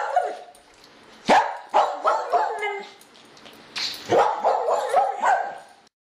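Dog barking: a single sharp bark about a second in, then a quick string of barks, and a longer run of barks near the end that cuts off suddenly.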